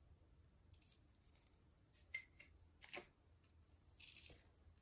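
Quiet kitchen handling while a ground spice is sprinkled over raw chicken drumsticks in a plastic bowl: a couple of light clicks about two and three seconds in, then a brief soft rustling hiss near the end as the spice goes on.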